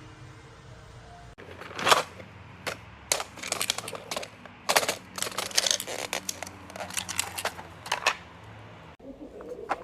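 Sharp clicks and clatters from handling a sewing kit, fast and irregular, starting about a second and a half in and stopping near the end. Faint background music is heard before the clicking starts.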